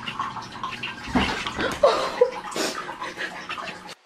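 Water running and splashing in a small bathroom, with a short cat cry about two seconds in. The sound cuts off abruptly near the end.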